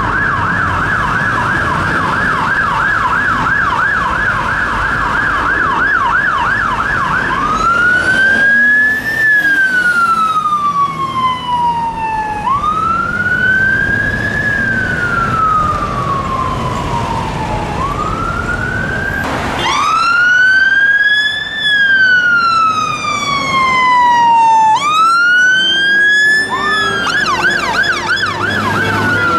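Fire engine sirens: a fast yelp of about four sweeps a second, then a slow wail that rises quickly and falls away over about three seconds, repeating. About two-thirds through a new wail starts abruptly, and near the end a second siren's fast yelp overlaps it.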